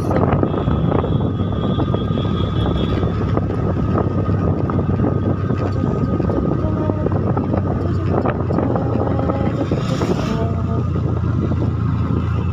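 A moving vehicle's engine drones steadily along with road noise, and wind buffets the microphone.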